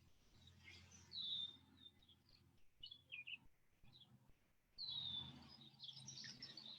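Faint birdsong: a clear down-slurred whistle about a second in and again near five seconds, with short chirps between.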